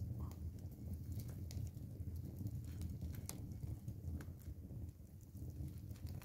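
Hands tearing apart a charcoal-roasted whole chicken: scattered small clicks and crackles over a steady low rumble.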